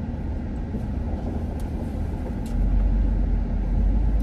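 Low, steady vehicle rumble heard from inside a car's cabin, growing louder about two and a half seconds in.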